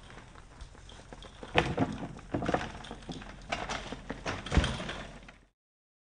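Bicycle clattering and bumping across bare dirt ground, with several hard thuds: the loudest about a second and a half in, a cluster of knocks a second later, and a heavy low thud near the end. The sound cuts off abruptly just before the end.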